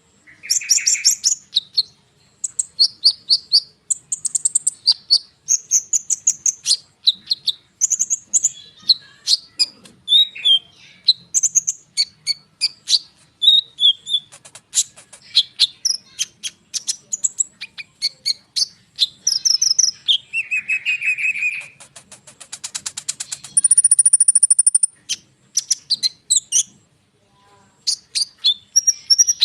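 A konin songbird singing its long, dense song of quick high chirps and sweeping whistled notes, with a fast buzzing rattle about three-quarters of the way in followed by a high held whistle.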